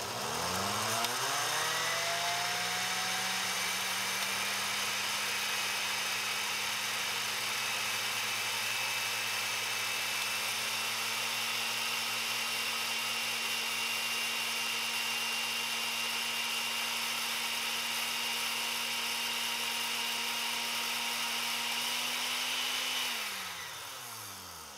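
Oster countertop blender motor spinning up, running steadily while grinding dried greens into powder, then winding down about a second before the end.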